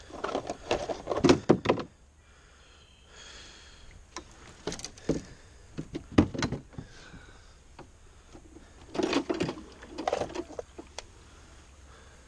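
Irregular knocks, clunks and rattles as fishing gear is handled against a canoe hull, in several short clusters a few seconds apart.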